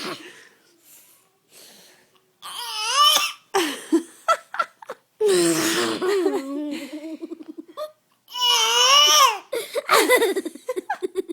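People laughing hard in several bursts, mixed with a baby's pretend coughs and babbling.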